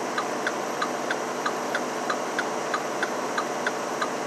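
A truck's flasher indicator ticking steadily, about three ticks a second, over the low, steady drone of the Mack Anthem's diesel engine heard inside the cab.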